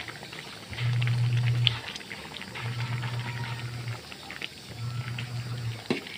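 Pot of misua noodle soup being stirred with a metal ladle and tongs: light clicks of the utensils against the steel pot and bubbling of the broth. Under it, a low bass note from background music swells for about a second, roughly every two seconds, and is the loudest sound.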